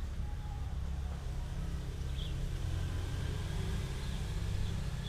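Outdoor ambience: a steady low rumble, swelling slightly in the middle, with a faint bird chirp about two seconds in.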